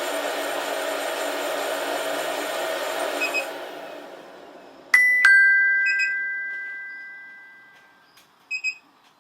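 Beanbon coffee roaster's steady whir, which dies away about three and a half seconds in after two short beeps. About five seconds in, a two-note falling electronic chime rings out over about three seconds, followed by a few short beeps.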